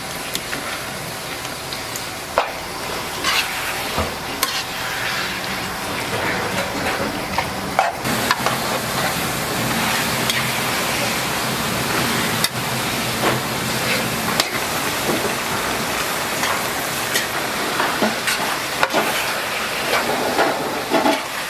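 Red-pepper-marinated meat and onions sizzling in a large wok while being stirred and turned with a metal utensil, which clicks and scrapes against the pan over a steady frying hiss.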